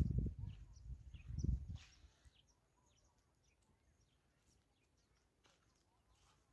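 Wind buffeting the microphone in uneven gusts for about the first two seconds, then dropping away to near quiet with faint scattered ticks and bird chirps.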